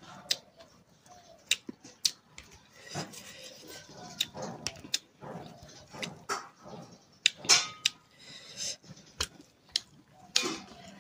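Close-miked eating sounds: chewing with wet mouth clicks and lip smacks coming irregularly, and a louder crunchy burst about seven and a half seconds in.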